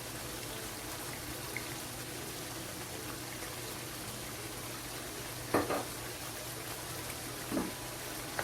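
Brown stew chicken cooking in its pot of gravy: a steady bubbling sizzle, with two brief sounds about five and a half and seven and a half seconds in.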